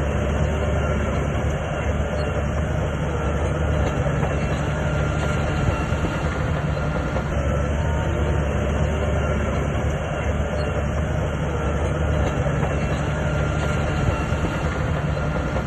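A SHANTUI crawler bulldozer's diesel engine running steadily, with the clatter of its steel tracks.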